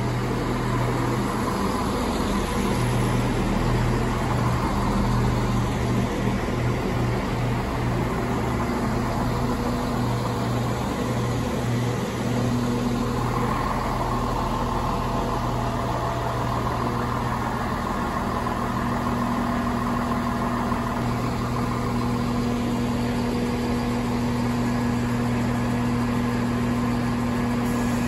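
Chiltern Railways Class 168 diesel multiple unit moving slowly past the platform, its underfloor diesel engines running with a steady low hum.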